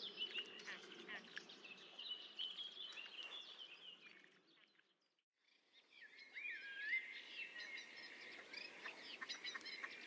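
Small birds chirping and singing in quick high trills. The sound fades away to near silence about halfway through, then fades back in.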